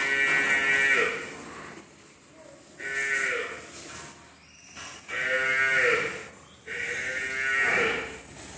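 Water buffalo calling in the milking shed: four drawn-out calls of about a second each, separated by short pauses, the first already under way at the start.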